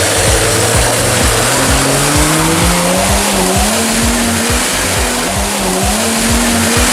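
Vehicle engine sound revving, its pitch climbing steadily over several seconds, with background music.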